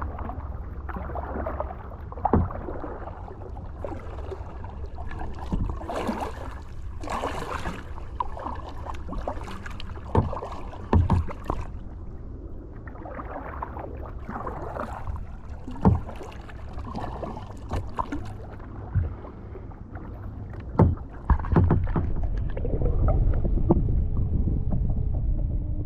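Kayak paddling: the paddle dipping and splashing in the water, with a number of sharp knocks and a steady low rumble that grows louder near the end.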